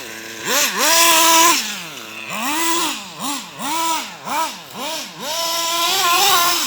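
Small two-stroke nitro engine of an RC car being revved up and down in quick throttle blips, about two a second, with the revs held high for about half a second near the start and for the last second and a half.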